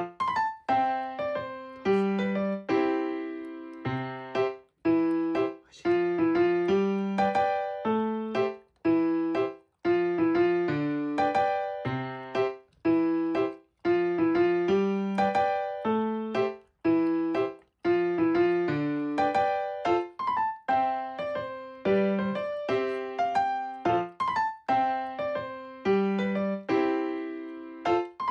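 Background piano music: a light melody of short struck notes that ring and fade, in phrases with brief pauses between them.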